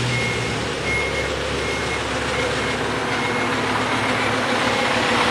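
A vehicle's reversing beeper sounding a high, even beep about three times every two seconds, growing fainter, over the steady noise of a running truck engine.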